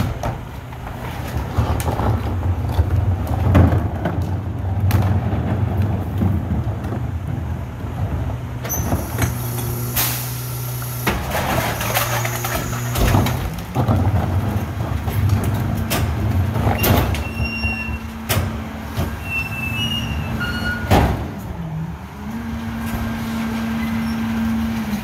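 Rear-loader recycling truck's diesel engine running, with knocks and clatter as a recycling cart is lifted, tipped into the hopper and banged down by the cart tipper. About halfway through, the engine revs up and holds higher while the hydraulic packer cycles, with a few short squeals.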